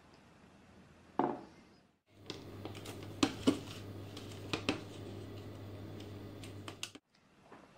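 Plastic food packaging being handled, a clear dome-lidded tub of cherry tomatoes and wrapped cucumbers, giving a run of sharp clicks and crinkles over a low steady hum. It is preceded by one short loud sound about a second in.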